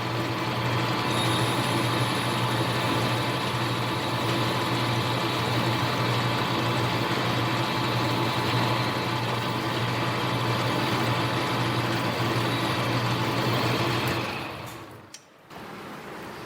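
Small metal lathe running steadily with a low motor hum while it takes the final cut to finished size. About fourteen seconds in it is switched off and winds down over about a second.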